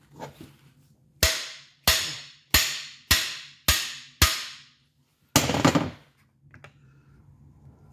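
Six hammer blows on a cam bearing driver bar, tapping a cam bearing into the cam tunnel of a Pontiac 400 cast iron block, each a sharp metallic strike that rings briefly, about two a second. After the blows come a short rattling burst and a faint click.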